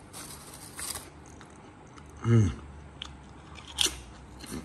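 Crisp packet rustling as a hand reaches in, then crunching and chewing of crinkle-cut potato crisps, with a short hum from the eater about two seconds in.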